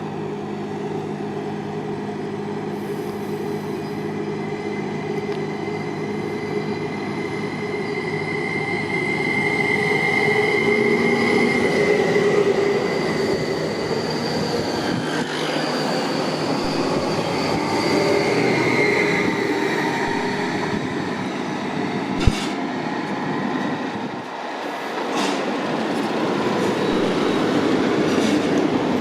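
A train running along the tracks with a steady rumble of wheels and cars. A high, wavering wheel squeal comes and goes over it.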